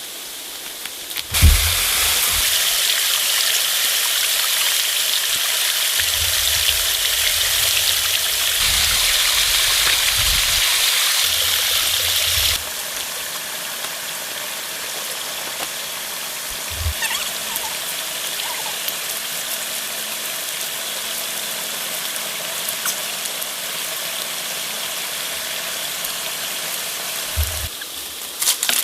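Steady hiss of water, rain or running water, changing abruptly in level at a few edit points, with a few low rumbles and thumps underneath.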